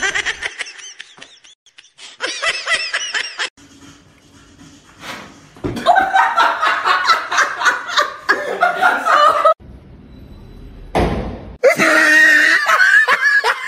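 People laughing in several bursts, with quieter gaps between them. A short rush of noise comes just before the last laugh.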